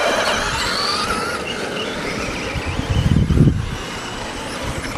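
1/10-scale radio-controlled stadium trucks racing on a dirt track, their motors whining and gliding up and down in pitch as they speed up and slow down. A low rumble comes in about three seconds in.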